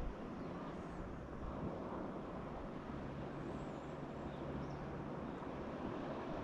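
Steady low rumbling noise with a faint engine hum that comes in about three seconds in and fades about two seconds later.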